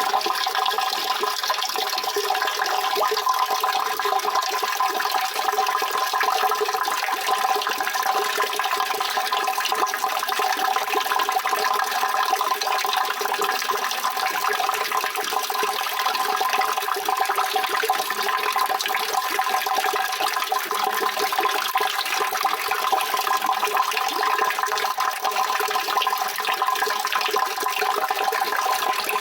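Steady, continuous rushing water, an even splash with no breaks or changes in level.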